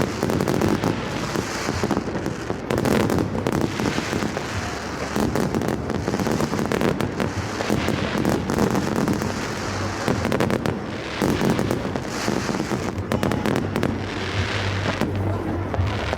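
New Year fireworks going off continuously: a dense crackle of many overlapping bangs and pops with no pause.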